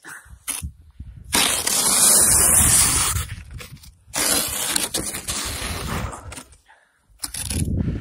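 Plastic snow shovel pushing and scraping through deep snow in three long strokes with short pauses between.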